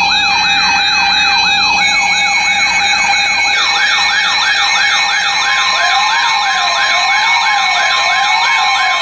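Several electronic sirens layered together: fast rising-and-falling wails repeating about twice a second over steady alarm tones. More sirens join about three and a half seconds in, and a slower warble comes in near the middle.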